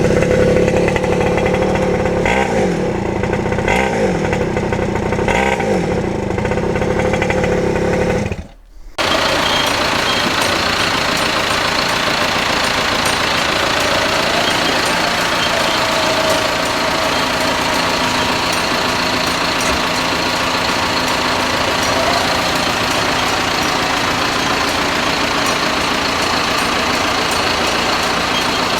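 Small quad bike engine running, its pitch shifting a little as the throttle moves, with the ignition freshly adjusted. It cuts off abruptly about eight and a half seconds in. Then a different engine or machine runs steadily, with a thin high whine.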